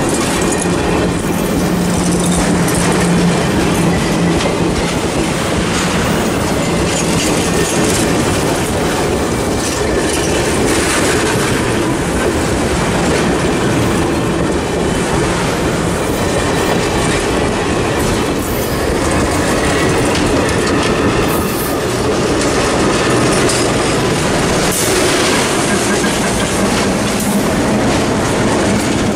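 Cuyahoga Valley Scenic Railroad passenger cars rolling past close by, their wheels clacking over rail joints with some faint wheel squeal. Near the end the diesel locomotive at the rear of the train comes past, adding a low engine hum.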